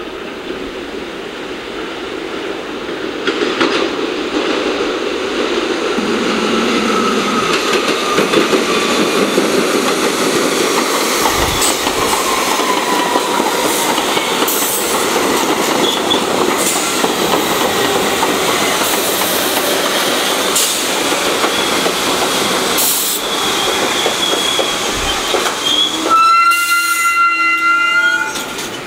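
An R62A subway train on the New York City 1 line pulling into the station: the wheel rumble swells as it approaches, then a long run of rolling wheel noise with occasional clacks and a whine that falls in pitch as the train slows. Near the end a steady high squeal with several overtones sounds for about two seconds as the train comes to a stop.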